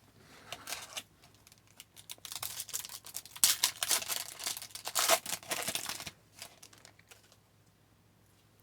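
A trading-card pack wrapper being torn open and crinkled in the hands, a run of crackly rustling that is loudest about three to six seconds in.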